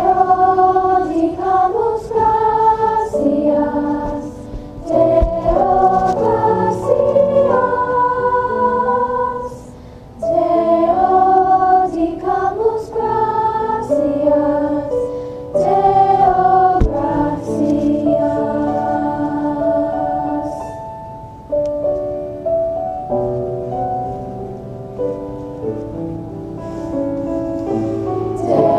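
A choir singing sustained chords in several parts, with a short break about ten seconds in and another partway through. It is heard muffled and slightly distorted from inside a pocket.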